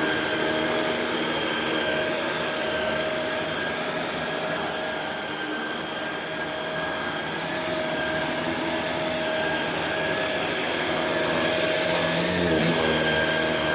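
Shark Rotator Pro Lift-Away NV500 upright vacuum running on carpet: a steady motor whine over rushing air, wavering briefly near the end.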